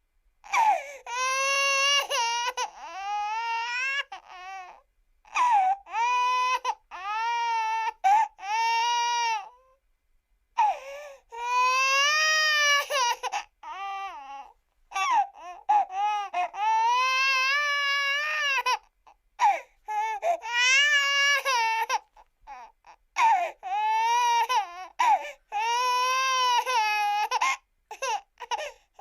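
Cartoon character's voice crying: a long run of high-pitched wailing sobs, each lasting a second or two and wavering up and down in pitch, with short breathy gasps between them.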